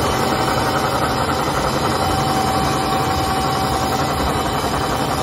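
ZSFQ1300 paper slitter rewinder running steadily, a paper web feeding over its rollers onto the rewind shaft: an even mechanical running noise with a thin steady tone through it.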